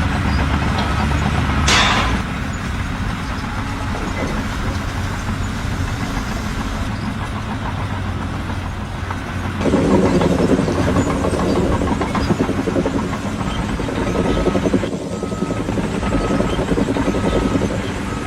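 A heavy vehicle's engine running steadily, with a brief noisy burst about two seconds in and a louder stretch from about ten seconds in.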